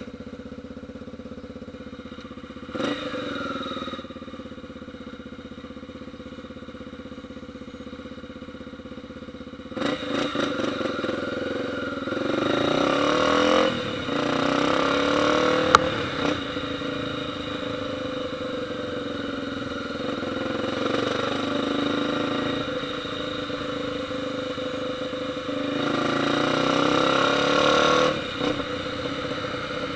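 Motorcycle engine idling and being revved: a short blip about three seconds in, a longer run of revving from about ten seconds in, then more revs near the end. One sharp crack stands out around the middle.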